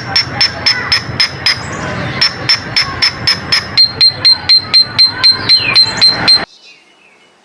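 Coleto (Sarcops calvus) calling: a fast series of sharp, high notes, about four to five a second, with a short break about two seconds in and a step down in pitch about four seconds in. It cuts off suddenly about a second before the end.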